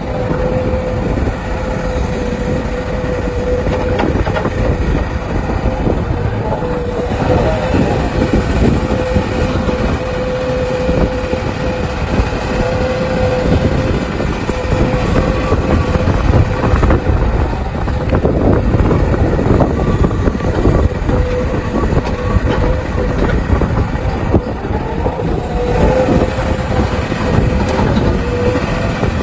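Excavator running under load while digging and loading a dump truck: the diesel engine and hydraulics make a steady hum, with irregular clanks and rattles.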